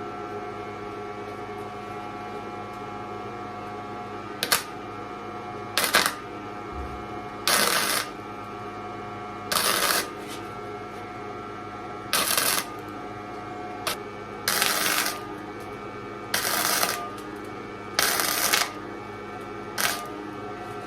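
Gasless (flux-core) MIG welder laying a run of short tack welds, about ten separate arc bursts each lasting under a second, one every second or two, over a steady hum.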